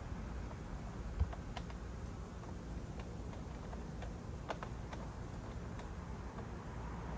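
Scattered light clicks and taps of a Yakima JayLow kayak rack's clamp being fitted and tightened by hand onto a roof crossbar, with one dull knock about a second in, over a steady low background rumble.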